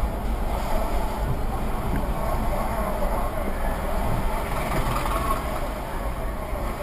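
Steady in-cabin rumble of a car moving slowly on a wet road, its engine and tyres picked up by a dashcam's microphone.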